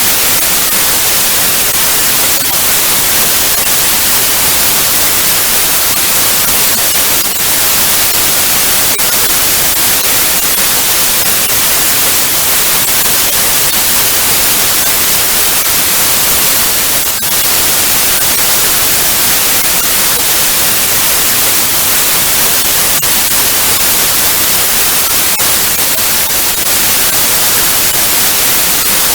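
Steady hiss of analogue TV static (white noise), with a few faint crackles.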